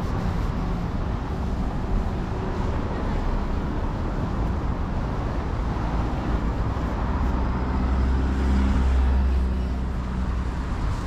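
City road traffic: a steady hum of cars on the road, with one vehicle's low engine rumble swelling louder and fading again about eight to nine and a half seconds in.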